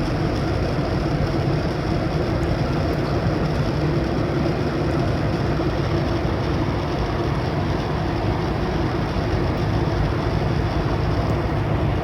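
Steady cabin noise of a Boeing 737-800 airliner in flight: an even, unbroken noise of engines and airflow heard from inside the cabin.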